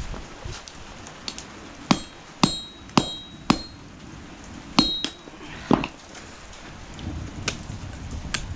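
Forging hammer striking a hot mild-steel knife blank: about seven sharp blows, each with a short metallic ring, in a run from about two to six seconds in, with a few lighter taps around them.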